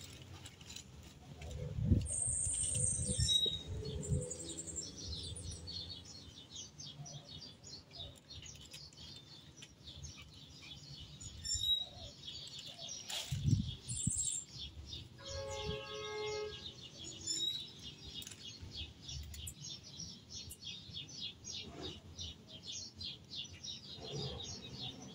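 Birds chirping, with a fast, even run of short high chirps repeating a few times a second, a longer pitched call about fifteen seconds in, and a few low bumps.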